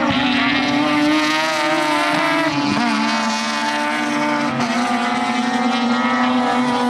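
Mazda RX-7 race cars' 13B rotary engines screaming at high revs while racing, the engine note stepping down in pitch twice along the way.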